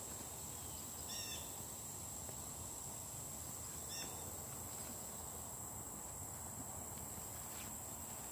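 Steady high-pitched insect drone in a rural yard, with two brief high chirps about three seconds apart.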